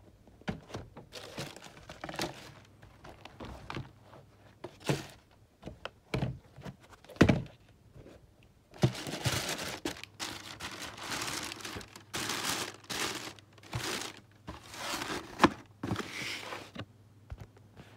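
Sneaker packaging crinkling and rustling while the shoes are handled and packed into a cardboard shoe box, with many small knocks. Two louder thunks come about seven and fifteen seconds in, and the crinkling is densest in the second half.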